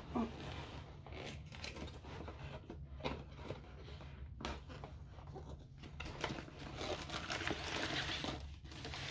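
Rustling, scraping and crinkling of a cardboard kit box and its plastic-wrapped contents being handled and opened, with scattered light clicks, busier near the end.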